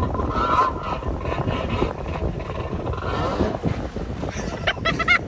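Wind buffeting the microphone over choppy sea water: a steady low rumbling rush.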